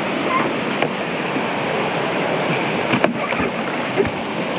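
Steady rush of flowing water, with a few light knocks about one, three and four seconds in.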